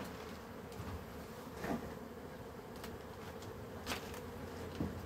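Honeybees buzzing in flight around the hives, a steady hum, with a few brief knocks about one and a half and four seconds in.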